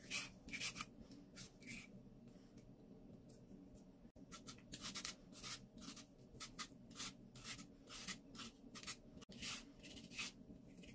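Carrot being shredded with a hand-held julienne peeler: quick, faint scraping strokes, a few a second, that thin out for a couple of seconds about two seconds in.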